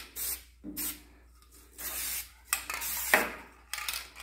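Aerosol spray can of satin black rust-stop paint hissing in a series of short bursts onto a radiator, with one longer spray past the middle.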